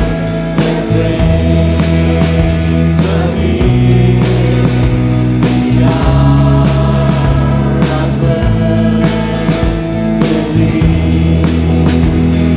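Live worship band: several singers over a drum kit with cymbals, bass guitar and electric and acoustic guitars, playing a hymn-style song.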